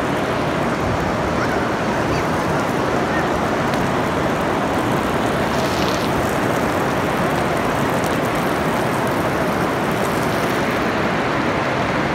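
Heavy rain pouring in a steady downpour.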